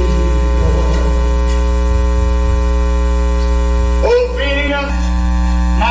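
Loud, steady electrical mains hum with its buzzing overtones on the audio feed. A brief voice sounds about four seconds in.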